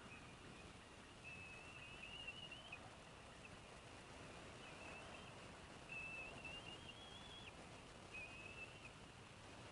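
Bald eaglets giving faint, thin, high whistled calls: four drawn-out calls, some stepping upward in pitch, over a low steady hiss.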